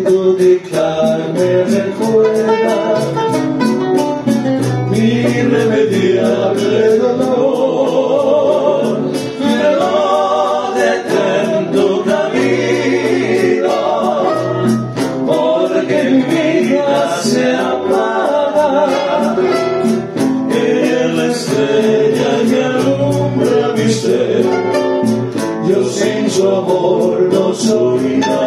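Bolero played by a guitar trio: voices singing in harmony over guitars, with a light, steady ticking beat.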